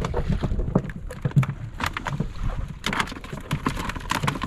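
Sounds aboard a small wooden fishing boat at sea: a steady low rumble of water and wind, with scattered knocks and a quick run of sharp clicks about three seconds in as the fish and gear are handled on deck.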